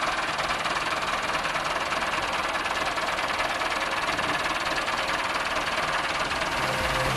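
Tractor engine running steadily, a rough, even mechanical noise.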